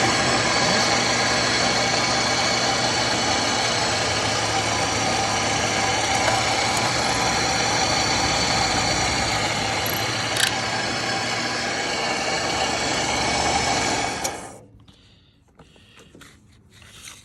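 Three-head paper drill press running steadily with a high whine, its hollow drill heads boring through a stack of cardstock, with a single sharp click about ten seconds in. The motor winds down and stops about three-quarters of the way through.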